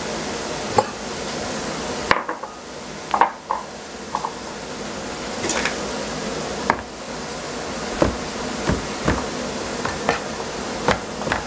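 Cleaver chopping courgettes on a plastic cutting board: about a dozen single, uneven knocks of the blade on the board, with pauses between cuts. A steady hiss lies underneath.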